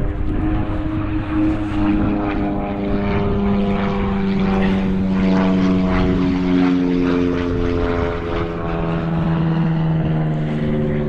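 Propeller airplane flying past, its engine drone a steady hum that slowly drops in pitch as it goes by.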